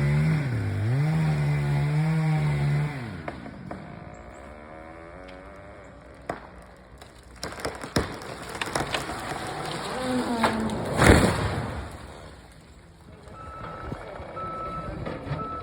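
Chainsaw running with its pitch rising and falling, cutting off about three seconds in. Then a run of cracks and snaps builds to one loud crash about eleven seconds in, as of a felled tree coming down.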